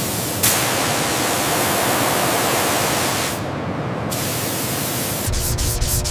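Steady hiss of chemical cleaner spraying and foaming on a brass plate, starting suddenly about half a second in. About five seconds in it gives way to quick rubbing strokes of a cloth on metal.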